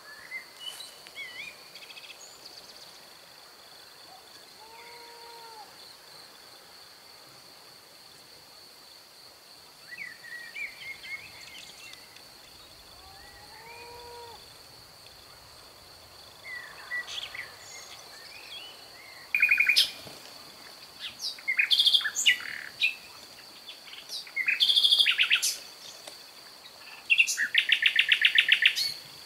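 Songbirds singing and chirping, sparse at first and getting louder and busier in the second half, with a fast trill near the end. A faint steady high-pitched tone runs underneath.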